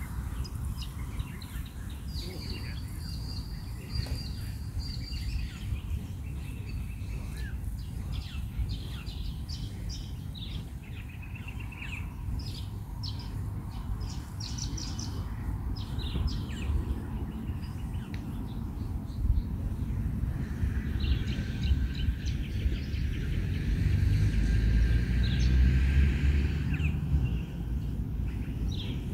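Outdoor ambience of birds chirping and calling over a steady low rumble, which swells louder for several seconds near the end.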